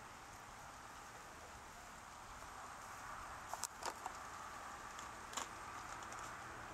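Faint steady hiss of light rain, with a few sharp clicks and knocks about three and a half to four seconds in and again at about five and a half seconds.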